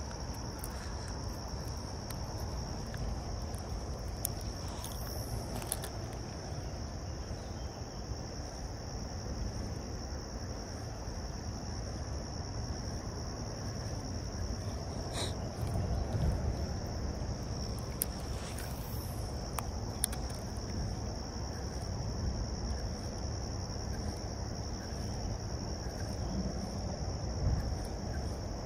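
Insects trilling in one steady high-pitched note, over an even low rush from the creek and wind, with a couple of faint clicks in the middle.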